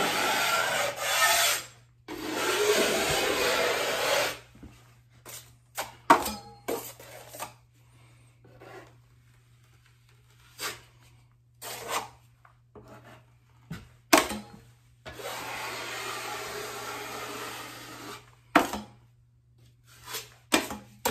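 Work Pro 6-inch stainless steel drywall knife scraping joint compound along a straight-flex corner bead: two long back-to-back scraping strokes at the start and a third about three-quarters of the way in. Short clicks and taps fall in between the strokes.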